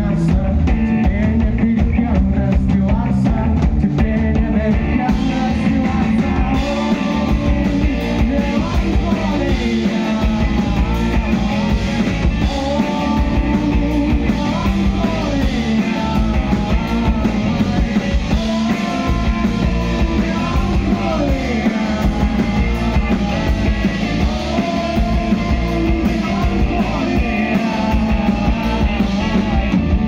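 Live rock band playing: a man sings over electric guitar, bass and drums.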